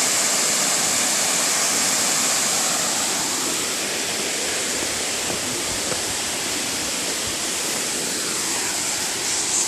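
Pongour waterfall running in full spate, swollen after a day of rain: a steady, loud rush of falling water.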